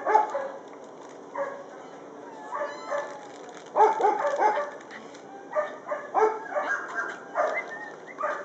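Dog yipping and whining in short, pitched cries that come in quick clusters of two to four.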